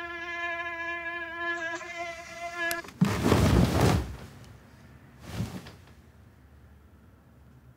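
Mosquito whine, a steady buzzing tone, cuts off abruptly near the middle. Right after it comes a sudden, loud rustle of bedclothes lasting about a second, and a shorter rustle a couple of seconds later.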